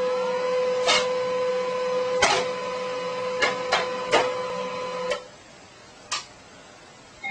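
A printer running with a steady motor whine and several sharp mechanical clicks. It stops about five seconds in, and one more click follows about a second later.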